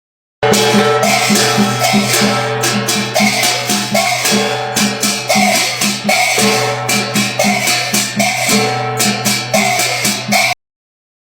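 A funeral-music meme clip: rhythmic percussion with sharp, regular hits under steady held melody tones. It starts about half a second in and cuts off suddenly near the end.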